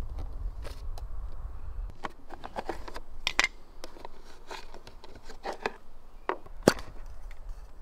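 Plastic clicks and knocks from handling an electric water gun: the battery cover at the back of the stock is pressed open and the battery pack slid out. The sharpest click comes a little before the end, and a low rumble runs under the first two seconds.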